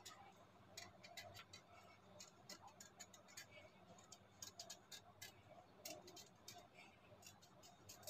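Faint, irregular ticks and clicks of a kitchen knife paring the skin off a raw green mango.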